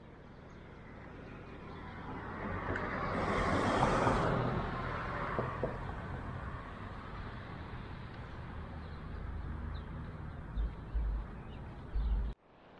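A car passes by, its noise swelling to a peak about four seconds in and fading over the next couple of seconds, over a low steady rumble. A few short low thumps come near the end.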